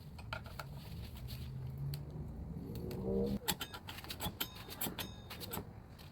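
Metal parts and tools clicking and clinking against each other, with brief metallic ringing, during work on a scooter's rear brake; a short low hum-like sound comes just before the clicks.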